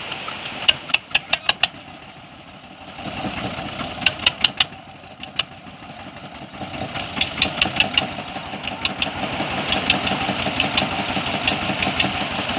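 A small engine running with a regular knocking beat: short runs of knocks at first, then a steady, louder chugging from about seven seconds in.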